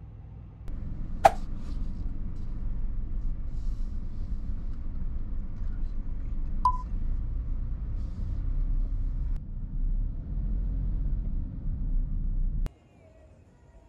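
Low, steady rumble of a car driving, heard from inside the cabin. A sharp click comes about a second in and a short beep in the middle. The rumble cuts off suddenly near the end.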